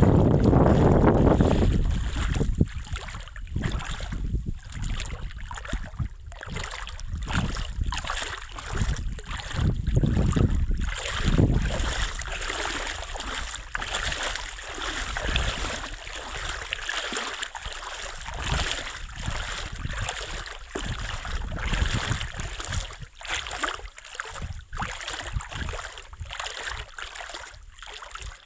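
Wind buffeting the microphone, heaviest in the first two seconds, then outdoor noise with small waves lapping at a sandy river shore and a string of uneven crunching steps on sand.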